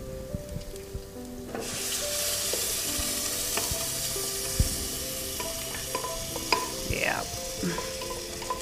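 Blended spinach poured into hot oil and toasted spices in a pot, sizzling; the sizzle starts about a second and a half in and keeps up steadily.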